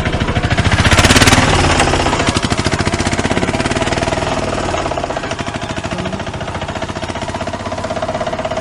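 An engine-like machine sound: a fast, even rattle with a steady hum under it, loudest about a second in and easing off afterwards.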